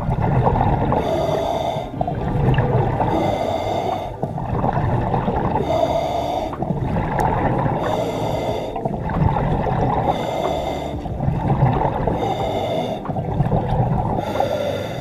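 Scuba diver breathing underwater through a regulator: a hissing inhalation about every two seconds, with bubbling exhalations rushing in between.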